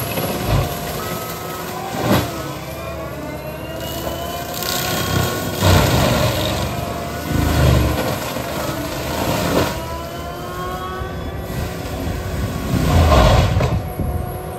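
Cat compact track loader's diesel engine and forestry mulcher head running hard while the mulcher grinds through brush and small trees. A whine rises and falls in pitch as the head takes and sheds load, with louder surges of grinding about two, six, eight and thirteen seconds in.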